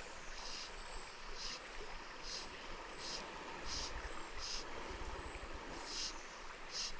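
Steady rush of river water, with a short high chirp repeating about every three-quarters of a second and some low wind rumble on the microphone.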